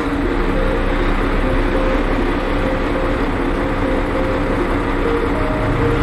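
Diesel engines of a large Hitachi hydraulic excavator and a Volvo articulated dump truck running steadily while the excavator digs to load the truck.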